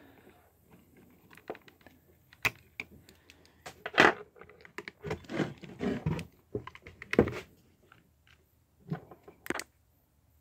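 Scattered clicks, taps and knocks of hand-tool work: steel hemostats and fingers knocking against a chainsaw's carburetor and plastic housing while a plastic carburetor limiter cap is worked loose. The loudest knocks come about four and seven seconds in.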